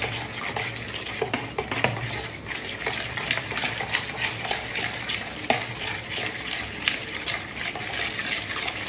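Spoon stirring a mixture in a bowl: quick, regular strokes that scrape and click against the side of the bowl, about three a second.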